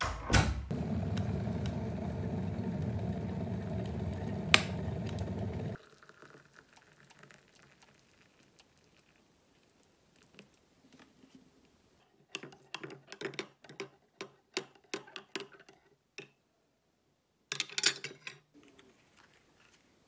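A steady, loud noise for about the first six seconds that cuts off suddenly. After a quiet stretch comes a run of about ten light clicks and taps, then a brief rustle, as a kettle, a teacup and foil food trays are handled.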